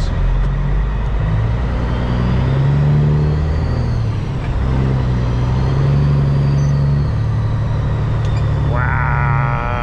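Caterpillar C15 diesel engine of a Peterbilt 379 semi truck running under load at low speed, heard from the cab, its note rising and falling a few times as the truck works through a tight turn. A brief wavering higher-pitched sound comes in near the end.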